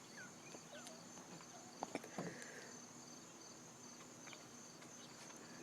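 Very quiet room tone with a faint, steady high-pitched whine and a few faint clicks and rustles about two seconds in.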